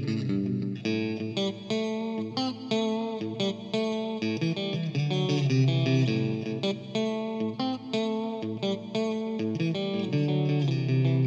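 Electric guitar, a Stratocaster with Fender N3 Noiseless pickups, played through an amp: chords strummed in a steady rhythm, changing every half second or so, with a held chord near the end.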